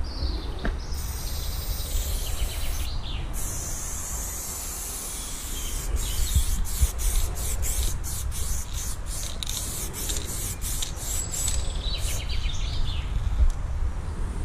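Aerosol spray-paint can hissing as paint is laid onto a wall. There are longer sprays first, then short on-off bursts about twice a second in the middle as the nozzle is pressed and released. A low rumble runs underneath.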